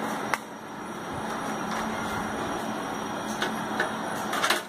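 Steady background noise with a few light clicks and taps as a voltage stabilizer's control circuit board and its wires are handled: one click about a third of a second in, then a quick cluster near the end.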